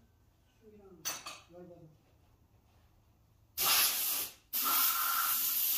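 Two loud bursts of hissing: a short one about three and a half seconds in, then a longer one after a brief gap. Faint voices come before them.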